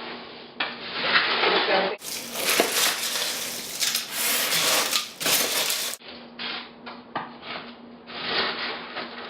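Dry snack mix of cereal, pretzels and nuts rustling and crunching as it is stirred and tossed in a dish, with a few clicks against the dish.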